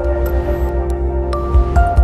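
Ambient electronic intro music with a held note over a low pulsing beat and light, bright high clicks.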